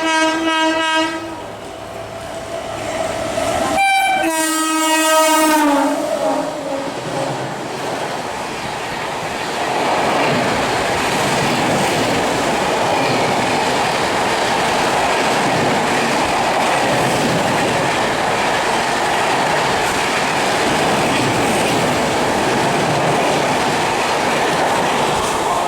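Tebhaga Express train sounding its horn twice, the first blast ending just after the start and a second about four seconds in whose pitch drops as it ends, then the train running past with a steady rumble and clatter of wheels over rail joints.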